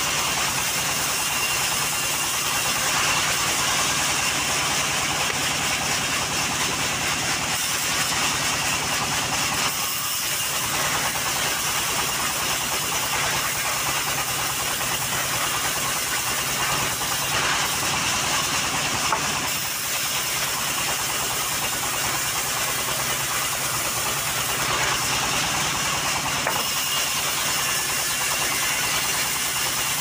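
Engine-driven homemade mobile band sawmill running steadily, its engine hum under the hiss of the band blade ripping lengthwise through a log.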